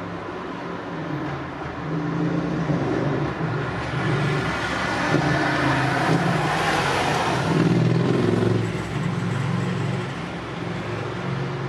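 Road traffic: a motor vehicle's engine running, growing louder to a pass about six to eight seconds in, with a rush of tyre noise, then fading away.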